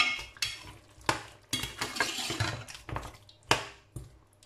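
A metal spoon stirring beef chunks in a steel pot, scraping and clinking against the pot's sides and bottom at an irregular pace.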